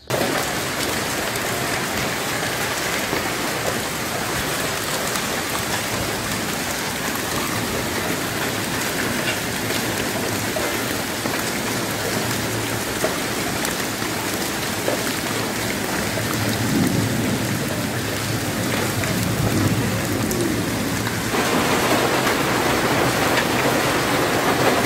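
Heavy rain mixed with hail pelting a paved courtyard and potted plants, a dense steady patter. About 21 seconds in it turns brighter and a little louder.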